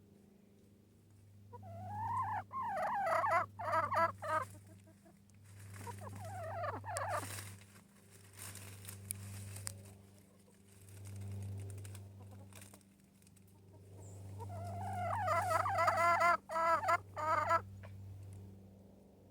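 Hen chicken calling in rapid, wavering trills, two loud bouts with a quieter one between, over a low steady hum.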